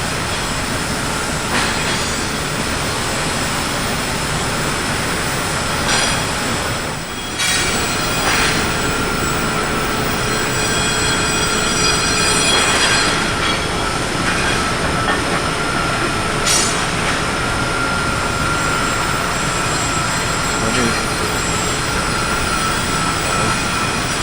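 Steel-forging shop machinery running: a steady loud din with several high whining tones. A few sharp noises stand out at irregular intervals, with a brief lull about seven seconds in.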